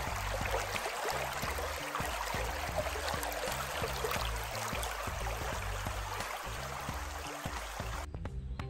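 Shallow rocky creek rippling and splashing over stones, with background music underneath. The water sound cuts off suddenly near the end while the music carries on.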